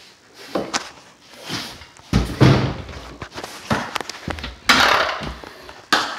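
Knocks and thuds from handling inside a bathroom vanity cabinet, several separate strikes with a short burst of rustling about three-quarters of the way through.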